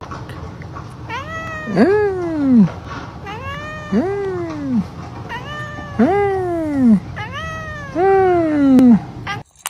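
A domestic cat giving four long, drawn-out meows about two seconds apart, each rising and then falling in pitch.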